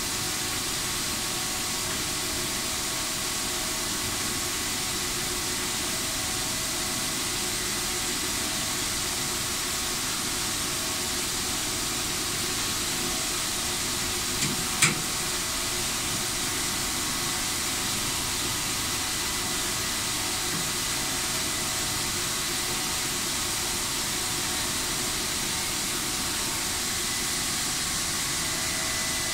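Steady mechanical hiss of a running machine, with faint high whine tones underneath, and two sharp clicks about halfway through.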